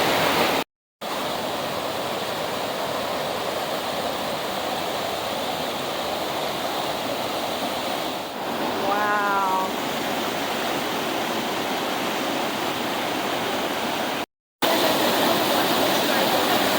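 Waterfall rushing steadily. About halfway through there is a brief wavering pitched call, and the sound drops out twice for a moment.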